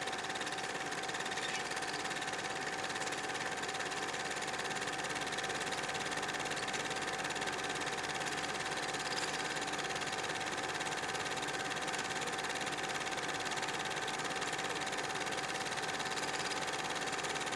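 Steady mechanical running noise with an even hiss and a thin steady whine, like a film projector running.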